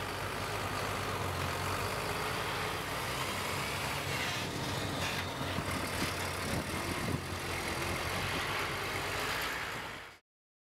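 Heavy diesel engine running steadily, a low droning hum under a noisy haze, fading out about ten seconds in.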